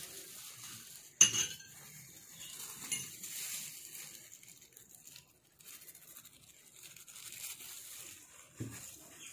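Kitchen handling sounds around a stainless steel mixing bowl: a sharp clink about a second in, a fainter one about three seconds in, and a soft thump near the end, with light rustling between.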